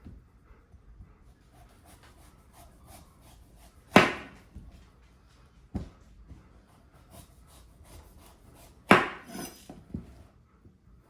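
Kitchen knife striking down through food onto a wooden cutting board. There are two loud knocks about five seconds apart, with a couple of quieter knocks and light handling noise between them.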